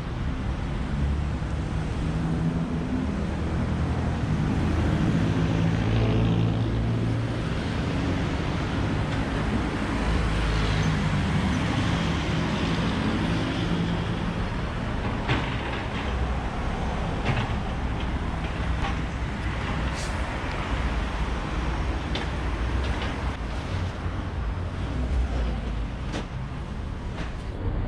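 Busy road traffic: cars, buses and trucks running and passing, with a low engine drone throughout and a few short sharp clicks in the second half.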